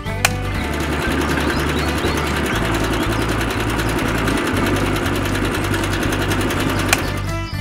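Small electric motor of a miniature toy concrete mixer running steadily with a whirring rattle as its tin-can drum turns and tips out wet concrete. A sharp click just after the start and another near the end.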